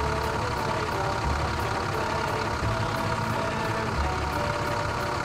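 Sound effect of a heavy truck engine running steadily as the truck pulls away, with a low throb that recurs every second or so.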